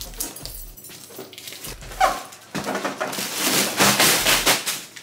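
A cardboard shipping box being torn apart by hand, a rough ripping and crunching that is loudest in the second half. About two seconds in, a short falling squeal of effort from her voice.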